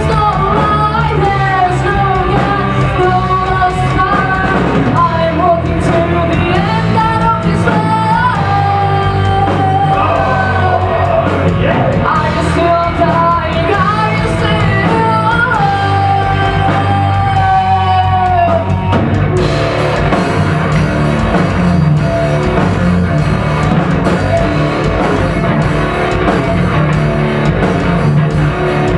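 Rock band playing live: a female singer sings and yells over electric guitar, bass and drums. About nineteen seconds in the vocal stops and the band plays on instrumentally, with the cymbals coming up louder.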